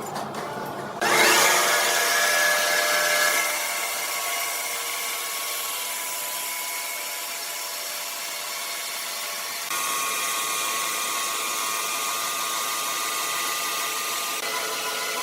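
Sawmill saw cutting wood: a steady whine of several high tones over a hiss, starting abruptly about a second in and loudest for the next couple of seconds. The tone shifts suddenly near the middle and again near the end.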